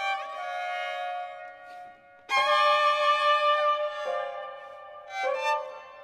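Violin and soprano saxophone playing sustained high notes in a contemporary chamber piece. About two seconds in the sound briefly drops away, then comes back louder, with one line sliding down in pitch, and a fresh entry follows near the end.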